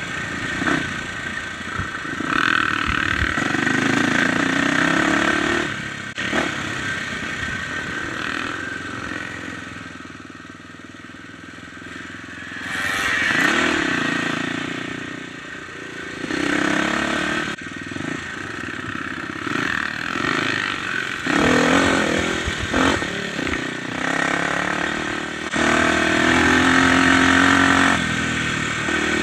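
Dirt bike engine under way on a trail, revving up and down with the throttle. It eases off and drops in pitch around ten seconds in, then picks up again sharply.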